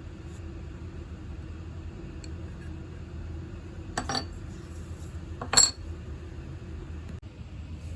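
Two sharp metallic clinks about a second and a half apart, the second louder, over a steady low hum.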